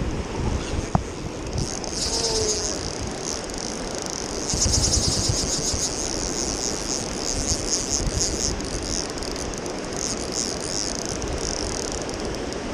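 Fly reel's drag buzzing in stretches as a hooked king salmon runs and pulls line off, with short pauses between runs. Under it, the steady rush of river rapids.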